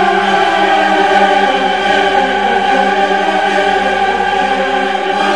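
Background music: choral voices holding long, sustained notes.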